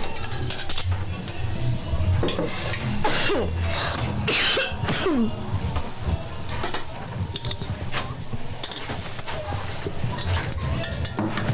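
A woman coughing, a sick cough, while metal pots clank as she handles and dries them, over soft background music with a pulsing beat.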